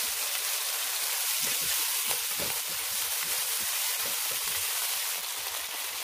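Chicken wings sizzling in hot oil in a wok with Shaoxing wine just added, a steady hiss, as they are stirred with a spatula.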